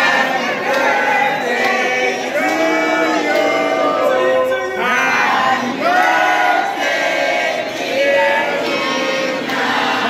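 A group of men and women singing a birthday song together.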